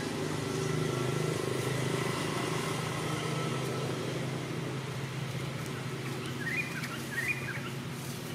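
A motor vehicle's engine running steadily, a low hum that eases off a little near the end. Two short high chirps come about six and a half and seven seconds in.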